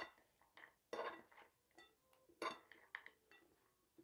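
Two metal forks clinking and scraping against a ceramic plate while tossing a salad: a handful of sharp, short, ringing clinks, the loudest at the start and about one and two and a half seconds in, with quiet between.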